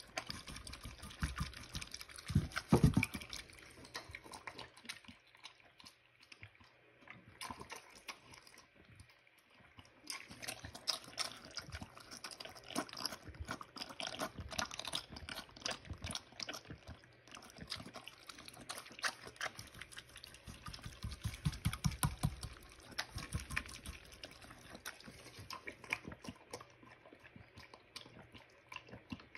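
A mini pig eating a wet slop of pellet feed in a frenzy: rapid wet slurping, smacking and chewing with its snout in the bowl, then slurping water. It gets louder for a moment about three seconds in and again around twenty-two seconds in, with a quieter stretch in between.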